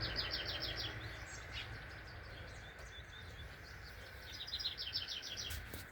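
A songbird singing two short runs of quick, evenly repeated high notes, one at the start and another near the end, over a low rumble of wind on the microphone.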